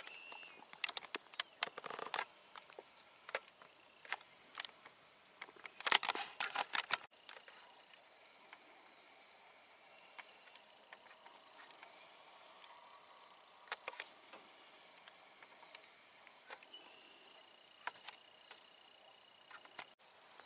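Handling noise from a handheld camera: scattered clicks and knocks, with a cluster about six seconds in. Under it, a steady high-pitched insect drone.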